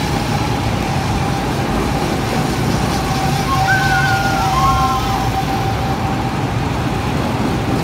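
Go-kart engines running around the track: a steady engine drone with a high whine held at one pitch. A few brief higher sounds rise and fall near the middle.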